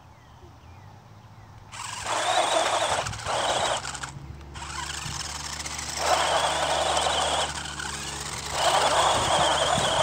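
Two 1/16-scale electric RC cars, a Sand Shark and a rock crawler, straining against each other in a tug of war: a high electric motor and gear whine with tyres scrabbling on gritty asphalt. It starts about two seconds in and comes in surges that drop back briefly several times as the throttles are worked.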